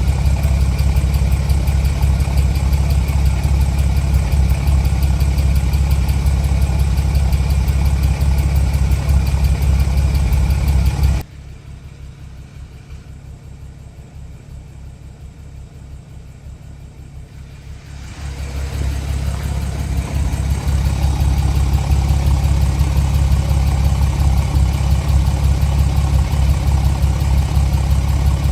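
Porsche Boxster 981S's 3.4-litre flat-six idling steadily, an engine with hydraulic valve-lifter (tappet) noise. About eleven seconds in the sound drops suddenly much quieter, and some seven seconds later it rises back to its full level.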